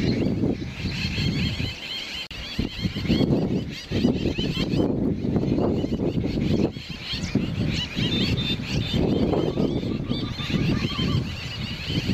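Birds chirping and calling over and over, above a loud, irregular low rumble that swells and fades every second or two.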